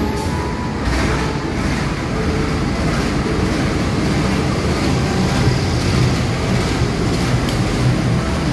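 KAI CC 201 diesel-electric locomotive moving along the platform with its passenger coaches, its diesel engine running as a steady low rumble.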